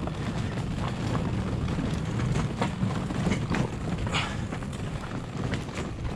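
Small hard wheels of a loaded delivery trolley rolling over a rough, potholed surface: a steady low rumble with irregular knocks and rattles.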